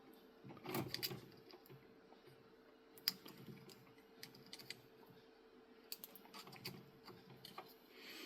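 Faint, scattered clicks and light knocks of small 3D-printed plastic cable-chain parts being handled and slid into place, with a small cluster about a second in.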